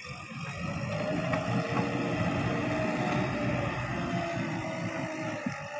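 JCB 3DX backhoe loader's diesel engine running steadily as the machine drives across sand, a drone with a faint whine that wavers a little in pitch. It drops out briefly near the end.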